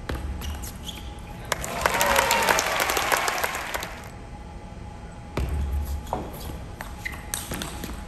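Table tennis ball knocking sharply off the paddles and table in quick exchanges, a few clicks about half a second apart, in two rallies. A crowd cheers and calls out for a couple of seconds between them.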